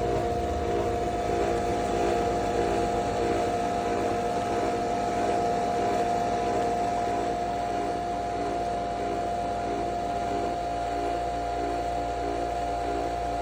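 Nespresso Vertuo Pop capsule machine brewing: a steady motorised whirring hum as the capsule is spun for centrifusion extraction.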